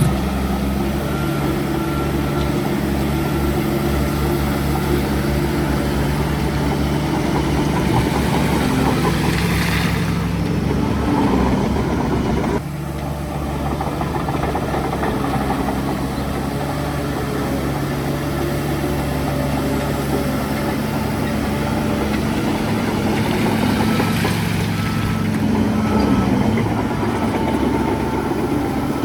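Heavy diesel engine of earth-moving machinery running steadily, with the pitch rising and falling as it revs, about ten seconds in and again near the end.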